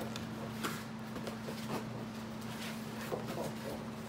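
Cardboard toy box being opened by hand: a few light scrapes and taps of cardboard as the end flap is worked open, over a steady low hum.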